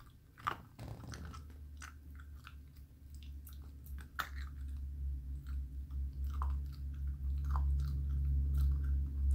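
Puppy chewing raw chicken wing bones: a string of short, sharp crunches and clicks. Underneath, a steady low hum comes in about a second in and grows louder.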